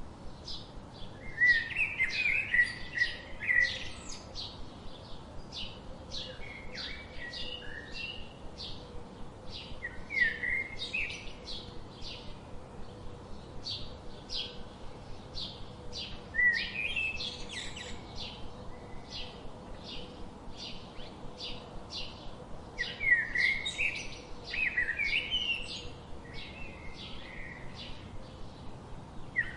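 Songbirds singing: a steady series of short high chip notes about twice a second, with louder warbling song phrases breaking in every few seconds.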